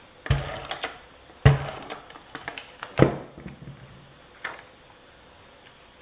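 Tape runner being pulled across the back of a photo in three quick strokes, each starting sharply and trailing into a short run of clicks, with a fainter tap about four and a half seconds in.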